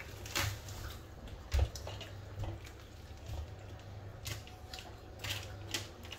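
Metal spoon clicking and scraping against a ceramic bowl while someone eats sticky rice, with chewing and mouth sounds; a few sharp clicks come scattered through, more of them in the second half.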